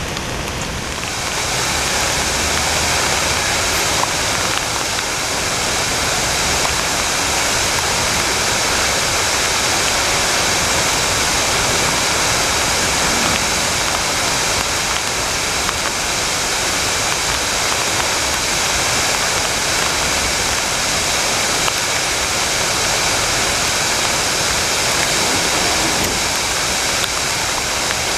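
Flood-swollen waterfall pouring over rocks: a loud, steady, dense rush of water. Rain falling gives way to it about a second in.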